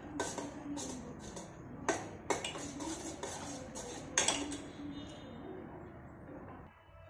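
Metal clinks and scrapes of stirring inside a small stainless-steel pot as rice flour is mixed into hot milk for ukad dough. There are sharp clinks about 2 seconds and about 4 seconds in, and the stirring goes quieter after about 5 seconds.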